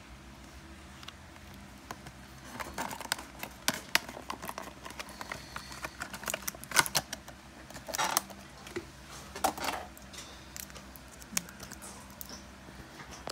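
Clear plastic clamshell packaging of a slide dimmer handled and pried open by hand: irregular crinkling, crackling and sharp plastic clicks, in several bursts.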